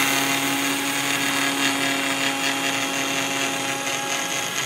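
Electric mixer grinder (mixie) running at full speed, grinding sugar into powder: a steady high motor whine with a hiss of the spinning blade and jar.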